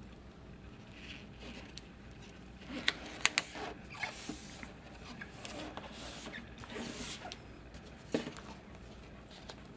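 Handling of a photo print: crinkles and a few sharp paper clicks about three seconds in, then the soft hiss of palms sliding as the print is pressed and smoothed flat onto adhesive.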